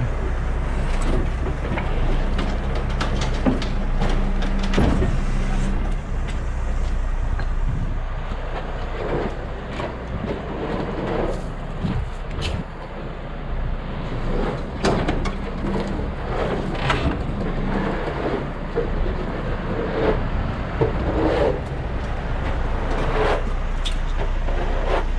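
Heavy truck diesel engine running, a steady low hum with even pitch for the first few seconds and then noisier, with scattered knocks and clanks.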